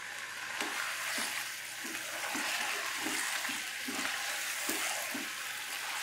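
Chicken pieces frying in hot oil with ginger-garlic paste in a nonstick wok: a steady sizzle, with the scrape and knock of a spoon stirring and turning the pieces about twice a second.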